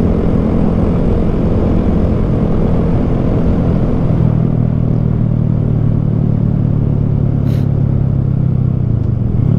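Honda Grom's small single-cylinder engine running under way, with a steady rush of wind and road noise; about four seconds in the engine note drops lower and settles.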